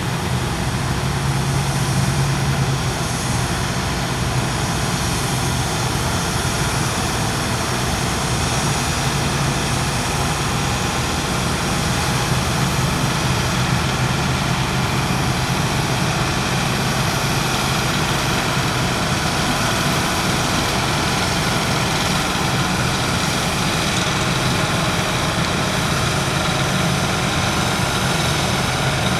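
New Holland Clayson 8060 combine harvester running steadily, with a low engine drone that holds even throughout.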